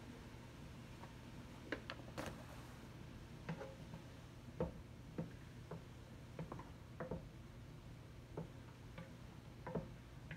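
Metal cooking utensil lightly tapping and scraping against a cooking pot, about a dozen irregular clicks and taps, over a steady low hum.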